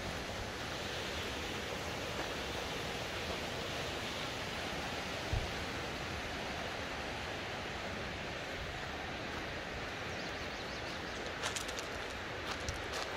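Steady rush of falling water from a waterfall, an even hiss with no rhythm. There is one soft thump about five seconds in and a few light clicks near the end.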